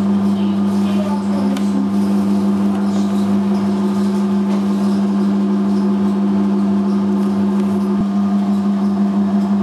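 Horizontal batch ice cream freezer running as it discharges freshly churned ice cream: a loud, steady motor hum that holds one even pitch.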